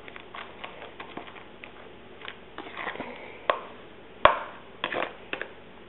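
A utensil stirring a moist oatmeal, fruit and milk mix in a plastic container: irregular clicks and taps of the utensil against the plastic, the sharpest about four seconds in.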